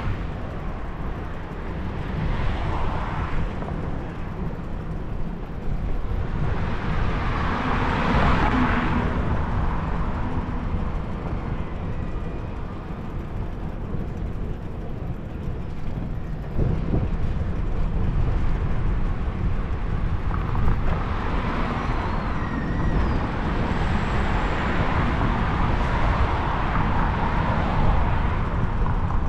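Road traffic heard from a moving bicycle: a steady low rumble of wind and road noise, with several passing vehicles that swell up and fade away, one about eight seconds in and a longer run over the last several seconds.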